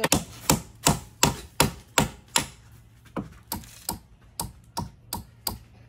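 Even, repeated blows on wood, about three a second, from building a small wooden house by hand; the blows soften and hit harder by turns.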